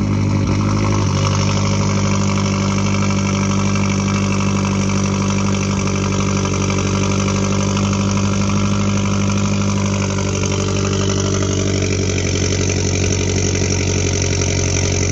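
Mazdaspeed3's 2.3-litre turbocharged four-cylinder idling steadily just after a cold start; the pitch settles slightly about a second in.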